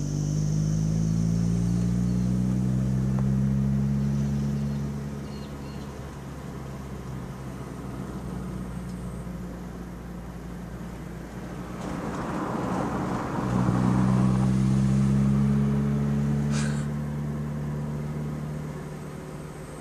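A car engine heard from inside the cabin pulls up through the revs for a few seconds, eases back to a steady cruise, and then accelerates again about two-thirds of the way through. A rush of road noise comes just before the second pull, and a single sharp click comes soon after it.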